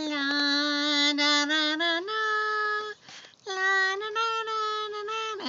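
A high voice singing a slow tune of long held notes, stepping between a few pitches, with a short break about three seconds in.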